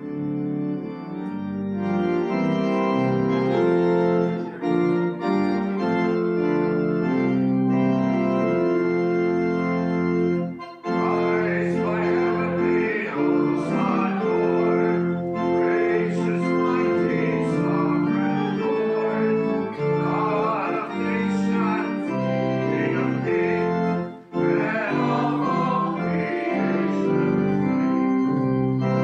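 Church organ plays a hymn introduction in sustained chords. After a short break about eleven seconds in, it plays on while the congregation sings the hymn.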